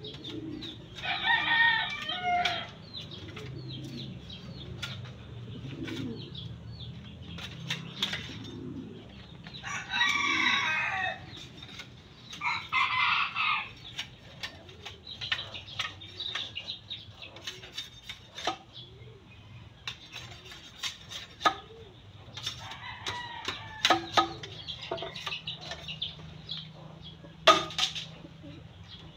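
Roosters crowing three times, with shorter chicken calls later. A machete chops at bamboo between the calls in sharp, irregular knocks, and one loud knock comes near the end.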